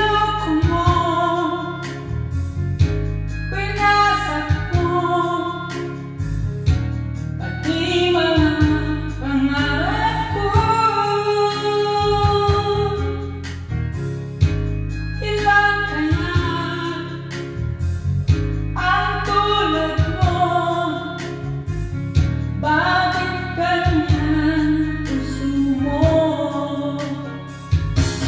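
A song: a voice sings melodic phrases over an instrumental backing with guitar and a low bass line.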